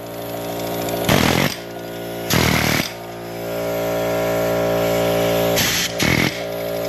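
Pneumatic air hammer with a chisel bit chattering against a rusted steel brake backing plate clamped in a vise, breaking the old plate apart. A steady rapid buzz runs throughout, with three short, harsher, louder bursts about a second in, at about two and a half seconds, and near six seconds.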